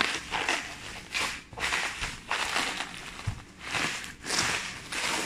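Plastic bubble wrap crinkling and rustling in a run of irregular bursts as it is handled and pulled off a foam packing block.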